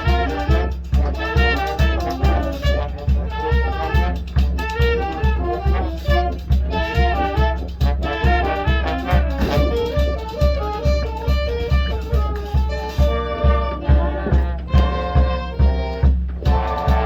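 High school marching band playing its field show: brass and saxophones play moving melodic lines over a steady low beat about twice a second. Near the end the band drops briefly and comes back on held chords.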